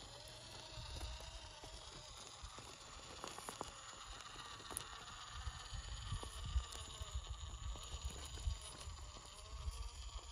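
Axial SCX24 1/24-scale RC crawler's small electric motor and gears whining faintly, rising and falling with the throttle as it climbs, with scattered clicks of its tyres and chassis on loose rock under a low rumble.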